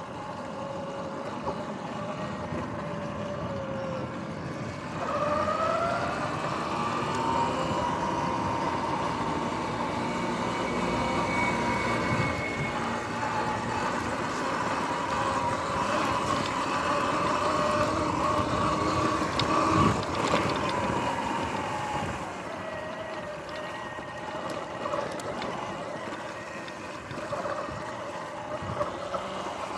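Electric dirt bike's motor whining while riding, its pitch climbing about five seconds in as the bike speeds up and dropping back about two-thirds of the way through, over rolling tyre and wind noise. A single knock just before the pitch drops.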